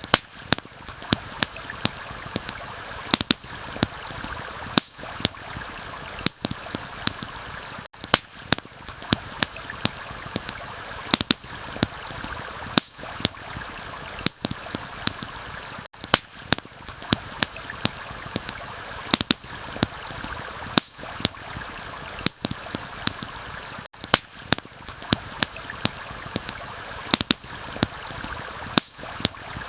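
Steady rush of a forest stream with frequent sharp pops and crackles of a burning campfire layered over it. The ambience briefly drops out about every eight seconds.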